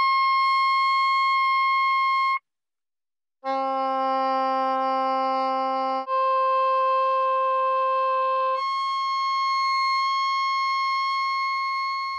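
Soprano saxophone holding its top C, which stops about two seconds in. After a second of silence it plays three held notes rising by octaves: middle C, the C an octave above, and top C again.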